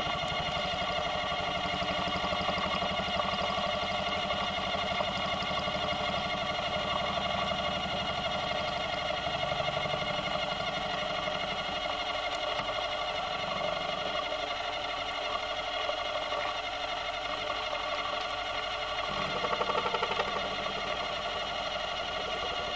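Small milling machine running steadily while milling gold, its motor giving a steady whine made of several tones; a lower hum under it fades about twelve seconds in and drops away near nineteen seconds.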